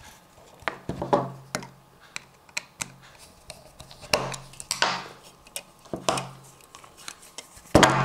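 Small screwdriver tightening the metal terminal screws of a plastic alarm contact, with scattered light clicks and small knocks as wire ends are wrapped round the terminals, and a louder clatter near the end.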